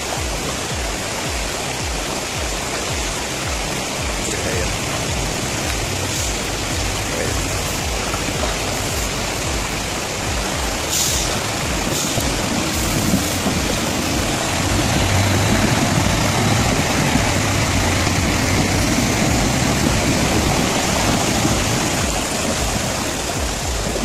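Rushing water of a shallow river with a loaded Mercedes-Benz 3340 log truck's diesel engine running as it fords it, growing louder a little past halfway. Background music with a steady beat plays over it.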